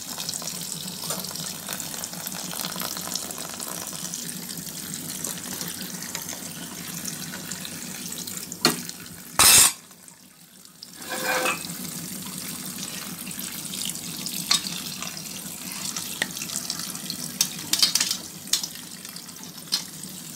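Tap water running onto cooked penne in a stainless-steel mesh colander, rinsing it in cold water. There are scattered light knocks, and one loud, brief noise a little under halfway.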